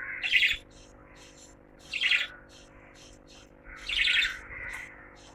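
Lovebirds calling: three loud, harsh calls about two seconds apart, with quick high chirps between them.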